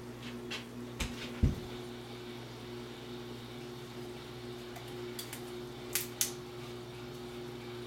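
Steady low hum in a small room, with two knocks about a second and a half in, the second one loud. Near six seconds there are two sharp clicks close together: the top of a protein test swab being snapped to release its testing fluid.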